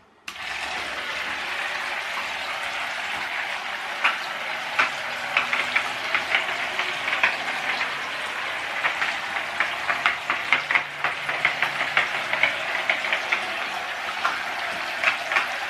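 Toy paddle boat driven by a small handheld-fan motor through pulleys, switched on a moment in: the motor whirs steadily while the paddle wheels churn the bath water and spray it around. Irregular sharp splashes and patters come from about four seconds in.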